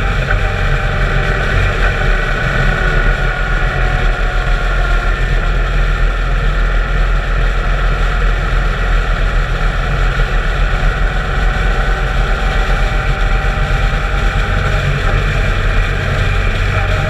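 Motorcycle engine running steadily at cruising speed, heard from on the bike, with wind rushing past.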